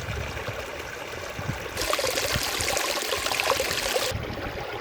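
Running water of a stream, a steady rush with small splashes. From about two seconds in to about four seconds it is louder and hissier, then drops back abruptly.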